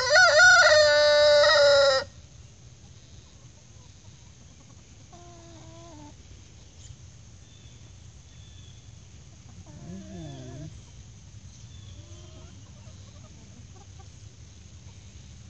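A rooster crows loudly once, a crow of about two seconds at the very start. Scattered quieter clucks and calls from the flock follow.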